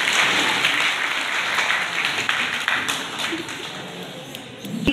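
Audience applauding, dense at first, then thinning out and fading toward the end.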